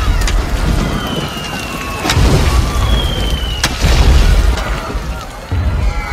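Film soundtrack of a battle: deep rumbling booms with three sharp cracks, under music.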